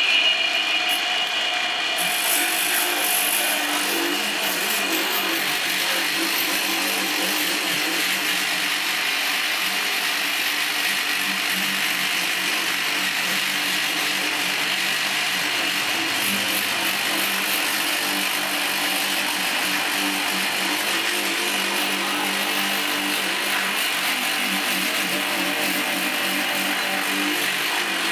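Hose-fed rotary tyre buffer running with its disc grinding against the rubber inside a bus tyre, buffing the inner liner to prepare it for a patch. It gives a high whine at first, then settles about two seconds in into a steady grinding.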